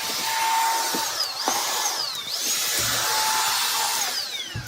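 Shark VacMop Pro cordless vacuum mop running in vacuum mode: a steady rushing suction noise with a high motor whine that dips and climbs back in pitch about three times as it is pushed across the floor. The sound drops briefly near the end, then picks up again.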